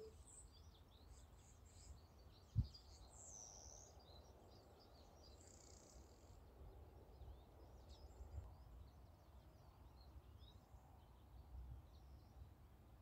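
Faint outdoor quiet with small birds chirping now and then, mostly in the first half, and a single low thump about two and a half seconds in.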